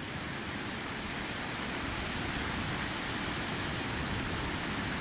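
Stream water cascading over rocks at the top of a sea-cliff waterfall, a steady rushing hiss.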